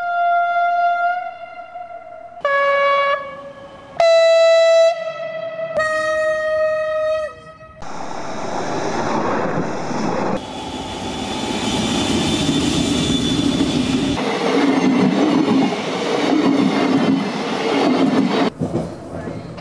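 Train horns sounding four separate blasts, each about a second long, the last dropping in pitch as it ends. Then red-and-white ÖBB regional passenger trains pass close by with rushing wheel and rail noise.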